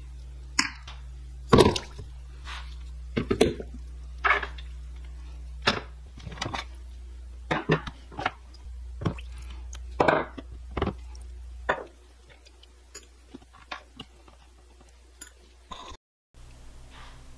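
Metal hand drill parts being dropped into and handled in a plastic tub of rust-remover liquid: a string of small, irregular splashes, drips and clicks against the tub. A steady low hum runs underneath and stops about two-thirds of the way through, leaving only a few faint ticks.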